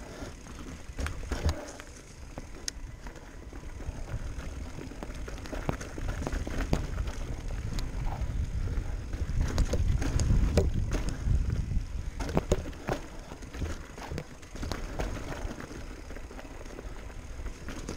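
Electric mountain bike riding over rough trail: tyres on dirt and rock, with frequent sharp clicks and knocks of the bike rattling. Underneath is a low rumble of wind on the microphone, heaviest about halfway through.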